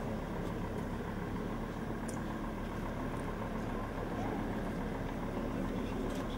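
Motor vehicle engine idling with a steady low hum.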